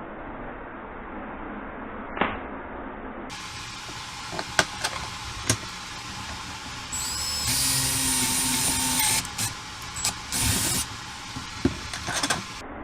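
Electric drill boring a hole in wood, run in short bursts, the longest about a second and a half, with a few sharp handling clicks before it.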